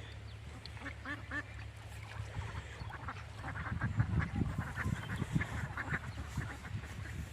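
Birds calling in short, repeated calls, a few at first and then a denser run through the middle, over a steady low rumble.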